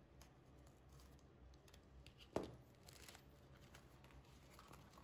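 Faint scratching and rustling of cardboard and plastic wrap as a box cutter slits packing tape and a cardboard sleeve is pulled open, with one sharp knock about halfway through.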